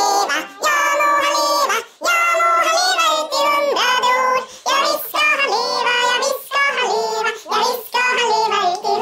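A child's high voice singing a tune, in held and gliding notes broken into short phrases.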